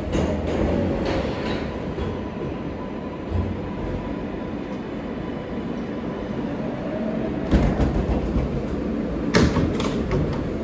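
R143 subway car rumbling along the track, heard from inside the car, with a faint steady high hum. Two sharp clunks, one about three-quarters of the way through and one near the end.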